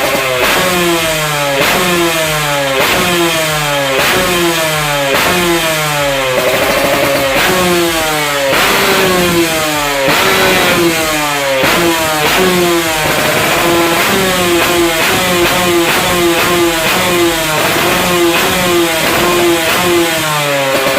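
Yamaha RX-King two-stroke single, road-race tuned with a Keihin 28 carburettor and a TGT under-belly expansion-chamber exhaust, being blipped over and over: the revs snap up and fall away about once a second.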